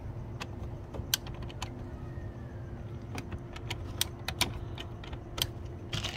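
Irregular plastic clicks and clatter from a toy car wash's hand crank and water-tank mechanism being turned by hand.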